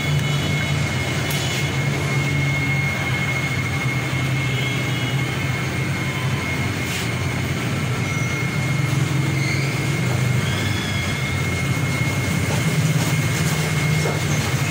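Steady low mechanical drone with a thin, steady high whine over it and a couple of faint clicks.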